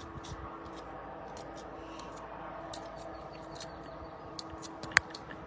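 Faint scattered small clicks and ticks over a steady hum, with one sharper click about five seconds in.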